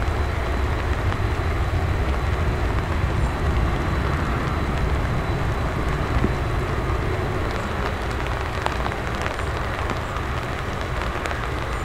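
Airbus A340-600's four Rolls-Royce Trent 500 jet engines running at taxi power as the airliner turns onto the runway, a steady low rumble. Light rain patters in from about halfway through.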